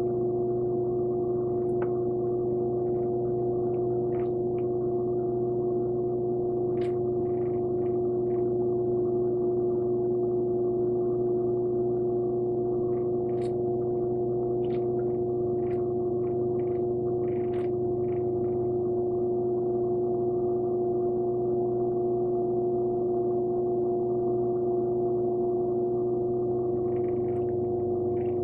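Electric pottery wheel motor running at steady speed, a constant humming whine with a few faint short clicks as hands work the wet clay on the spinning wheel head.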